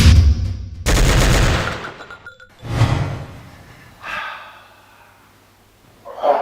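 A series of loud gunshot-like bangs, about a second apart, each trailing off and each fainter than the one before, followed near the end by a short, sharper burst of sound.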